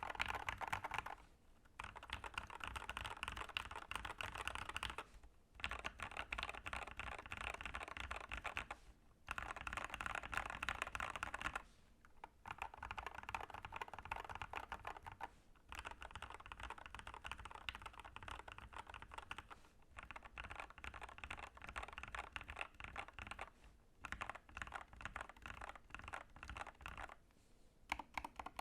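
Typing on an Epomaker TH80 Pro mechanical keyboard with factory-lubed Gateron Yellow Pro 2.0 linear switches, a gasket-mounted steel plate and PBT keycaps. The typing is fast and steady, in bursts of a few seconds broken by short pauses.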